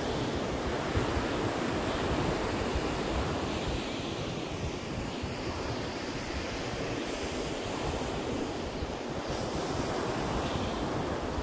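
Ocean surf breaking and washing up a sandy beach in a steady wash, with wind buffeting the microphone.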